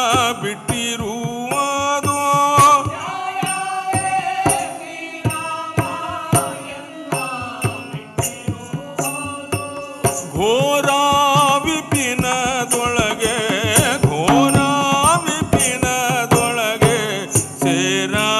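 Live South Indian music accompanying a Togalu Gombe Aata shadow puppet play: a wavering sung melody over sharp percussion strokes, with a new phrase rising in about ten seconds in.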